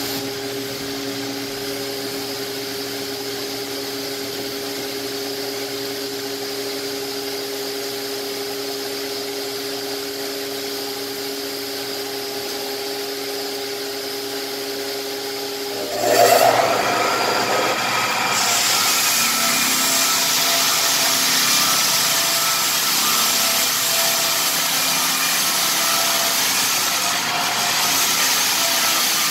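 Lägler Hummel drum floor sander running with its dust extraction, a steady motor hum. About sixteen seconds in the sound jumps louder and turns to a hissing rush as the drum is lowered and sands along the rift red oak floor.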